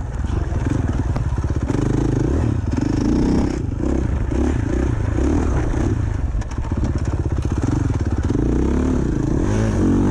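Dirt bike engine running hard as it is ridden, its revs rising and falling again and again with throttle and gear changes, heard from on the bike.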